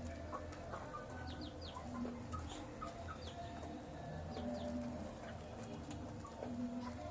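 Baby chicks peeping while they feed, with scattered pecking clicks and a short low cluck about every two seconds.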